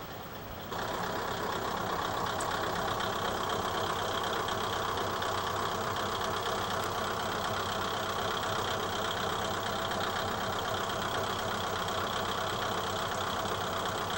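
Diesel railcar's engine running steadily as the car moves past close by. The sound steps up in loudness just under a second in and then holds an even drone.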